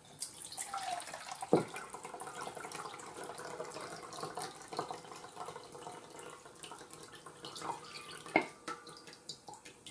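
Black bean canning liquid pouring from a tipped glass mason jar into a stainless steel bowl: a steady trickle with two light knocks, thinning near the end.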